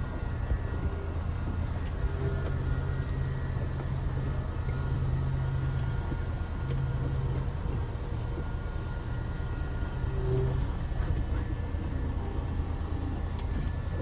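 Semi-truck's diesel engine running at low speed with a steady low rumble.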